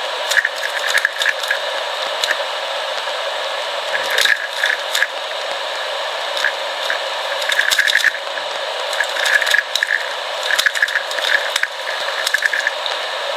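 Plastic 3x3 speed cube being turned rapidly through a solve, its layers clicking and rattling in quick irregular flurries. The cube is freshly lubricated and loosened.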